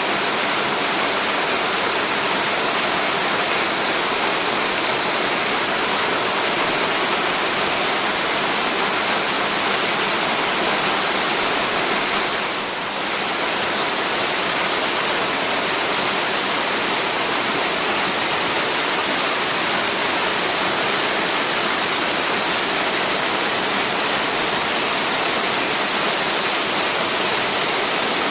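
Steady rushing roar of a tiered waterfall, water falling over several rock steps, with a brief slight dip about halfway through.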